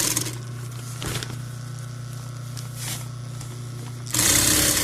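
Electric sewing machine stitching a long straight seam: it stops just after the start and leaves a steady low hum with a couple of faint clicks. About four seconds in it starts stitching again.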